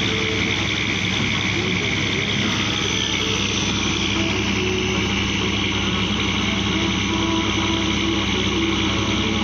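Fishing boat's engine running steadily under way, with the rush of its wake washing along the shallow bank.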